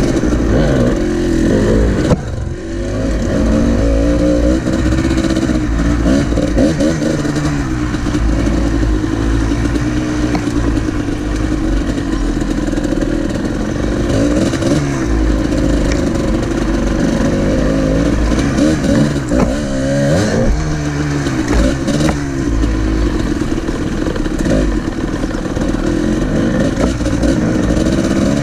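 Kawasaki KDX two-stroke dirt bike engine being ridden, its pitch rising and falling over and over as the throttle is worked, with a brief drop off the throttle about two seconds in.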